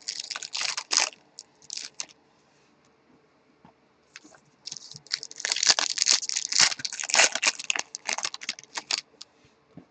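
Trading cards being flipped and handled briefly, then after a pause a 2020 Bowman baseball card pack's foil wrapper crinkling and tearing as it is ripped open.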